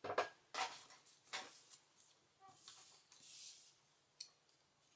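Faint handling of paper and craft supplies on a work table: a few short rustles and scrapes in the first second and a half, a soft hiss around three seconds, and a small tick just after four seconds.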